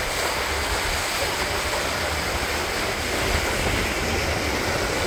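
Steady rush of water along the hull of a moving boat, mixed with wind buffeting the microphone as a low rumble.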